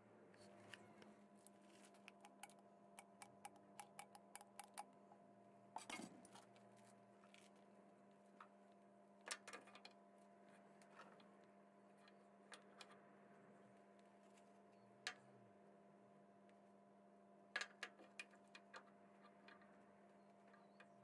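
Faint small metallic clicks and taps as the steel cam gears of a 1953 BSA B31 engine are picked up and fitted by hand onto their spindles in the timing chest. A quick run of light clicks comes first, then a few louder single knocks, over a steady low hum.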